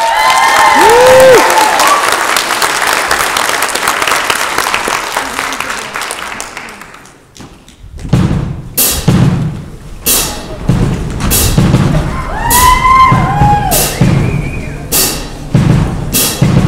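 Audience cheering and applauding, with a few whooping voices, fading away over about seven seconds. Then a drum-heavy beat starts, with steady low kick-drum thumps, sharp hits and sliding vocal sounds over it.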